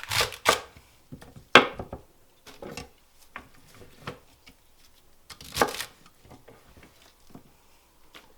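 Kitchen knife cutting through fresh celery stalks on a cutting board: a few sharp, irregular chops with lighter knocks between them.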